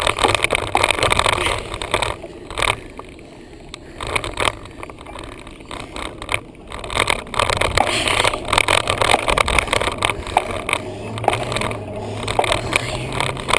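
Bicycle ride heard from a camera in a bike mount: rattling and knocking of the mount over bumps with wind noise, louder at the start, easing in the middle and rising again.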